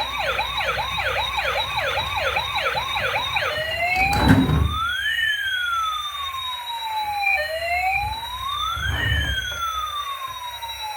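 Toy emergency vehicle's electronic siren: a fast warbling yelp for about three and a half seconds, then a slow rising-and-falling wail in two tones that cross each other. Two low thumps come near 4 and 9 seconds.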